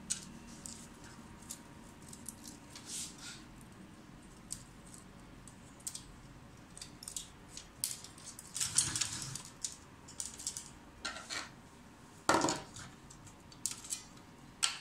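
Scattered clicks, taps and scrapes of hands handling the wiring and plastic parts of an opened HP LaserJet P1102 laser printer, with a busier stretch about two-thirds of the way in and one louder scrape a little later.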